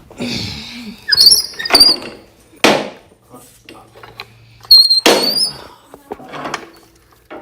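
Metal tools clanking together in a series of sharp knocks, several with a short, bright metallic ring.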